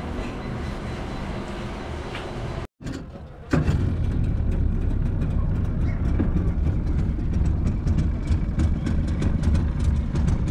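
Small motorboat's engine running steadily as the boat moves, a loud low rumble with crackling, coming in suddenly after a brief cut-out about three seconds in. Before the cut, the steady background hubbub of a busy street stall.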